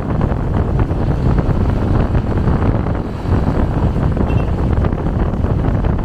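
Steady rumble of a moving vehicle on the road, with wind buffeting the microphone.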